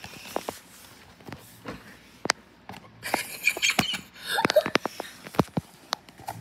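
Handling noise: a string of sharp clicks and taps, with two stretches of rustling about three and four and a half seconds in.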